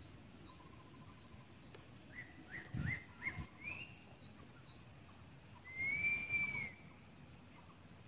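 Wild birds calling: a quick run of short rising chirps about two seconds in, then one long whistled note near the end, over faint outdoor background noise.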